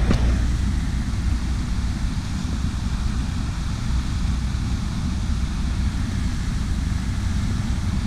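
Steady low rumble with an even hiss over it, unbroken throughout: wind buffeting the action-camera microphone.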